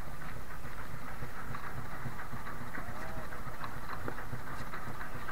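A small wooden fishing boat's engine running with a steady low rumble, with a clatter of small knocks and rattles.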